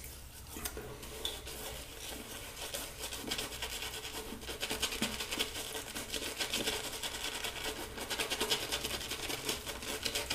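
Badger shaving brush face-lathering a soft tallow soap: rapid, repeated soft scrubbing strokes of the wet, lathery knot against the cheek. The strokes grow a little louder after the first couple of seconds.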